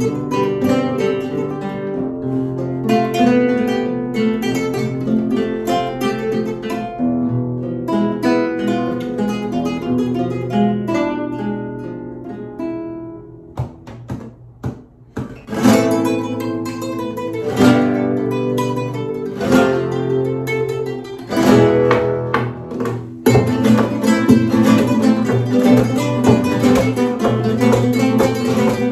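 Four nylon-string Spanish guitars playing together, a picked melody over chords. Around the middle it thins to a few soft strokes, then comes back with loud struck chords and, near the end, steady full strumming.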